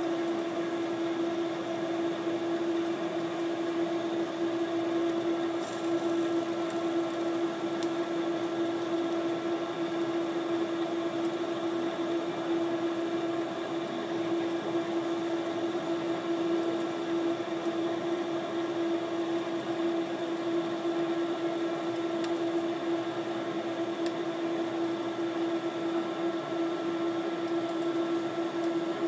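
Wave soldering machine running with a steady mechanical hum and one strong, constant low tone.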